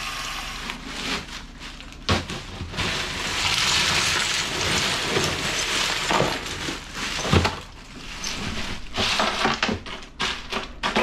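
Ice cubes poured and shaken out of a plastic bag into a tub of water and cucumbers, making a rattling, crunching clatter. It starts suddenly about two seconds in and comes in several bursts, with a few louder knocks. Water from a tap runs into the tub at first.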